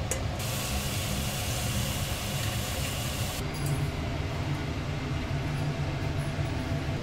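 A steady low mechanical rumble, with a high hiss that sets in just after the start and cuts off sharply about three and a half seconds in.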